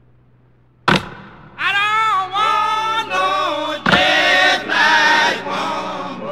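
Intro song of unaccompanied-sounding singing in sung phrases. A sharp percussive hit comes about a second in, the singing starts shortly after, and a second hit lands near four seconds.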